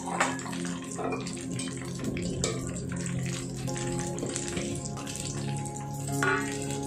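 Half-fried chicken pakoda pieces sizzling and bubbling in hot oil in a kadai, with a few metal clinks and scrapes of a wire spider strainer as the pieces are lifted out after their first fry.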